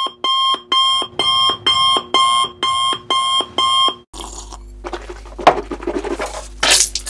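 Electronic alarm clock beeping in a steady rhythm, about two beeps a second, cutting off suddenly about four seconds in. Irregular rough noisy sounds over a steady low hum follow.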